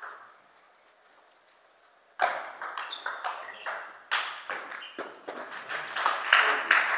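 Table tennis ball clicking off bats and the table in a fast rally. There is a single click at the start, then about two seconds of quiet, then a quick run of sharp clicks, several a second.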